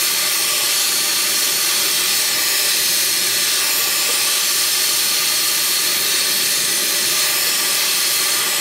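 Oxy-fuel torch flame hissing steadily at an even level while it heats a steel shift linkage rod toward red hot.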